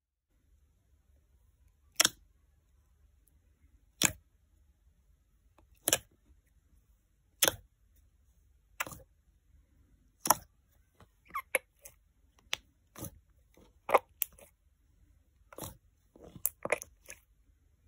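Fingers poking into a tub of clear jelly slime, each press giving a sharp click or pop. The pops come about every two seconds at first, then faster and in quick clusters in the second half.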